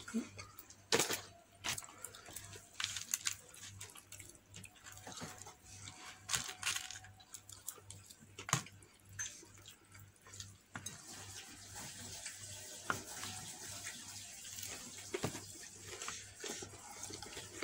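Faint close-up eating sounds: chewing fried chicken and tearing its crispy coating by hand, with scattered sharp crackles and clicks.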